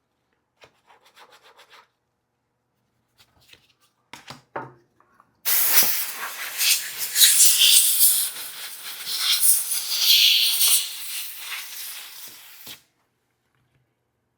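A brush scrubbing dust off a laptop's fan and internal components: a few light scratchy strokes, then, about five seconds in, some seven seconds of loud, uneven rubbing strokes that stop abruptly.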